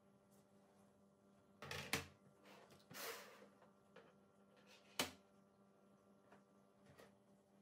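Nanoleaf Elements wood-look hexagonal light panels being handled on a wooden tabletop: two quick knocks as a panel is set down about two seconds in, a short scrape as one slides about a second later, and a sharp tap around five seconds, with faint small ticks between.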